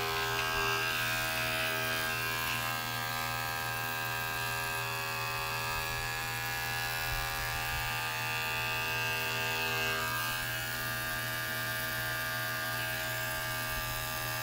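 Cordless electric pet clipper running with a steady buzz while it trims the fur on a corgi puppy's paws.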